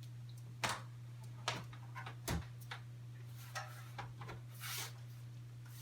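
A computer case's back panel being handled and fitted into place: a few sharp knocks and clicks with a short scrape near the end, over a steady low hum.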